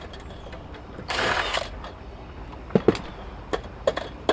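Ryobi cordless drill briefly driving, backing a screw out of a steel switch chassis in one short burst about a second in, followed by a few sharp clicks and knocks of metal parts being handled.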